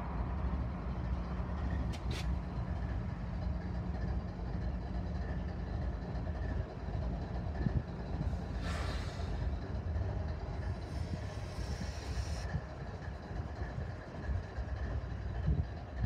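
GE ES44DC diesel-electric locomotives passing close by at the head of a freight train, their GEVO V12 diesel engines running with a steady deep drone. Two short hisses come in the second half.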